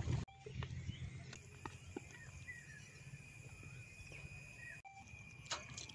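Chicken deep-frying in hot oil sizzles and crackles, then cuts off abruptly just after the start. After that there is faint outdoor background with a few short bird chirps and a thin steady high tone.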